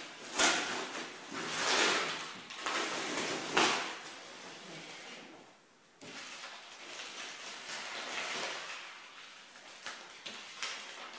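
A cardboard parcel being handled, with a run of rustling and scraping strokes. They are louder in the first four seconds, then softer after a short lull.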